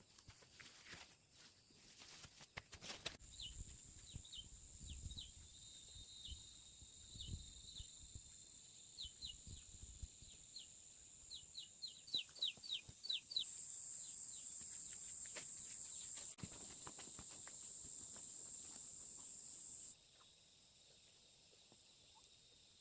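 Forest wildlife: many short falling bird chirps that quicken into a rapid run, over a steady high-pitched insect drone that grows louder and then cuts off suddenly. Soft rustling and footstep-like thumps come in the first part.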